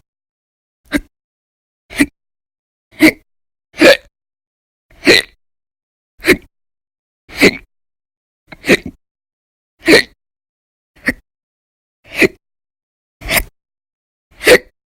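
A person's violent, very loud hiccups, about one a second in a steady rhythm, each a short sharp gulp with silence between. They are part of a chronic bout of hiccups that runs for around ten to fourteen hours a day.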